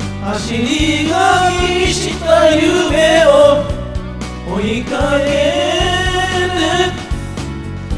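Several voices singing a J-pop song together into karaoke microphones, over a karaoke backing track.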